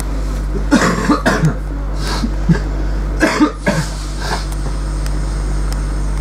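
Steady low hum of a Class 323 electric multiple unit heard from inside the passenger saloon, with a person coughing in short bursts about a second in and again around three and a half seconds in.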